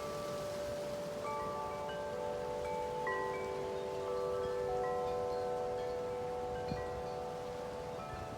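Wind chimes ringing in strong wind: several tuned tubes struck at irregular moments, their notes overlapping and ringing on, over a steady rush of wind.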